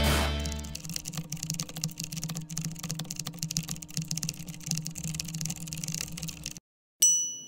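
Rapid, irregular clicking and clatter of plastic toy bricks over a steady low hum, cutting off suddenly about six and a half seconds in. A single bright bell ding rings near the end.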